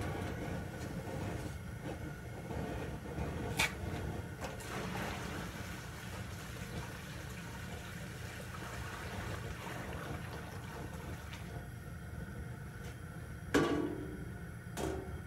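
Maple sap boiling in a steaming stainless-steel evaporator pan, a steady low rush, with liquid pouring and splashing into the pan. Two sharp knocks come near the end.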